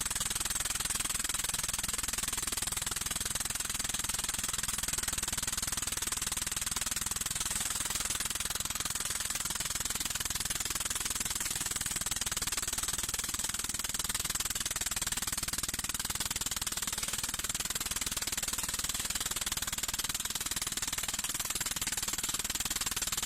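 A machine running steadily with a dense, rapid rattle at an even level.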